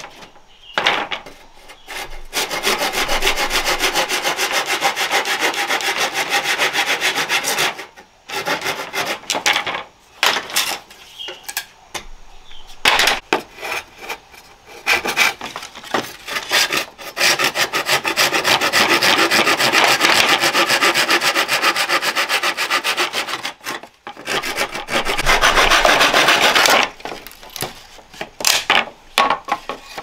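Hand saw cutting through dry split bamboo in long runs of fast strokes, broken by short pauses and shorter bursts of sawing.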